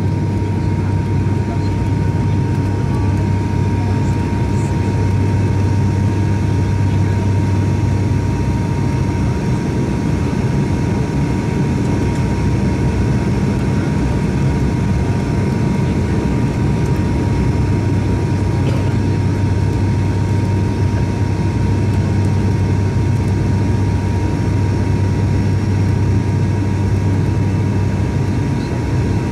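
Cabin noise inside an ATR 72 turboprop airliner on its landing approach: the steady drone of its twin Pratt & Whitney PW127 engines and six-blade propellers, with a strong low hum and a thin steady whine above it. The low hum eases for a few seconds about a third of the way through, then comes back.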